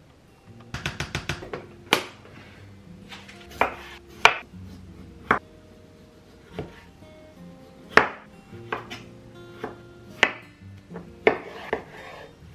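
Kitchen knife chopping on a cutting board: a quick run of about seven strokes about a second in, then single knocks at irregular intervals, over soft background music.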